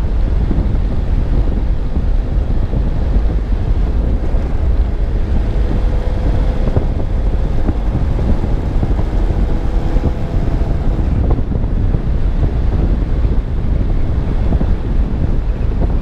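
Wind buffeting the microphone of a camera mounted on a moving car, over steady road noise from the car. A faint steady hum joins in around the middle.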